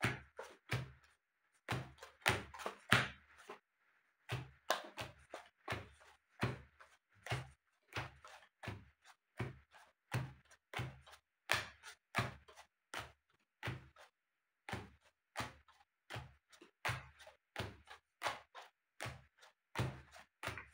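Playing cards being laid down one at a time onto a cloth mat on a wooden table as a deck is sorted into suits: a steady run of soft taps and thunks, about two a second, with two short pauses.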